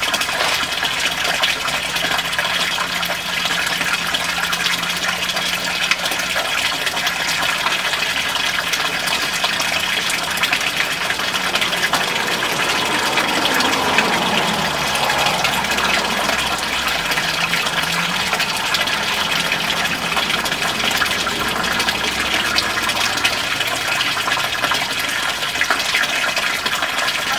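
Garden pond waterfall: a stream of water pouring from a fountain spout into the pond, splashing steadily.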